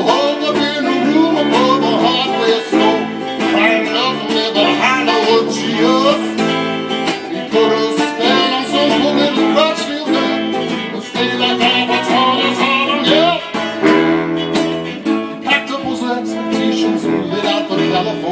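A live acoustic-electric band playing an instrumental break between sung verses: strummed acoustic guitar, electric guitar, banjo and saxophone.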